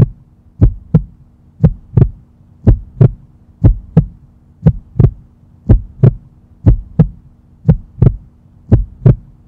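Heartbeat sound effect: a steady lub-dub, two quick thumps about once a second, over a faint steady hum.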